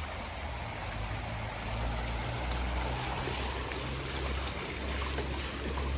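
Shallow river running over rocks and stones: a steady rushing with a low rumble underneath.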